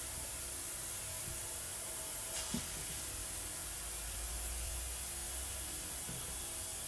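Steady hiss of background room noise, with one soft tap about two and a half seconds in.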